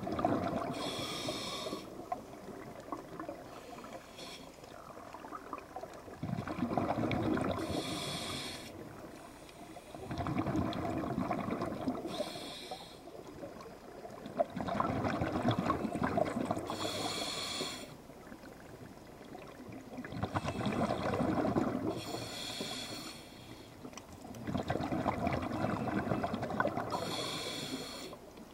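Scuba diver breathing through a regulator underwater, slow and regular, about every four to five seconds. Each breath brings a short high hiss and a longer rush of exhaled bubbles.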